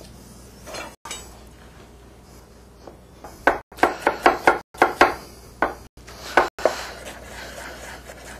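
Chef's knife mincing peeled shallots on a wooden cutting board. A few seconds in comes a quick run of about a dozen sharp knocks of the blade on the wood.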